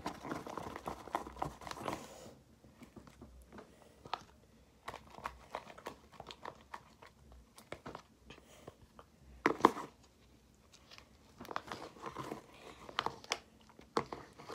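Homemade slime being kneaded and mixed by hand in a container as liquid starch activator is worked in: irregular squishing and crackling, busiest in the first two seconds and again near the end, with one sharper knock a little past halfway.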